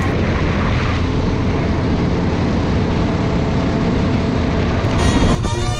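Steady wind rush and engine noise of a dual-sport motorcycle riding at highway speed. It cuts off near the end.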